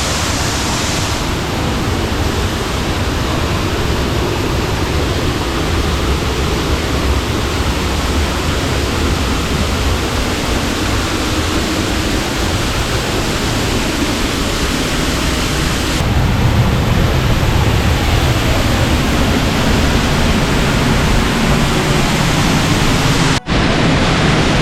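Sgwd yr Eira waterfall heard close up: a loud, steady rush of falling water. It grows deeper and fuller about two-thirds of the way through and drops out for an instant near the end.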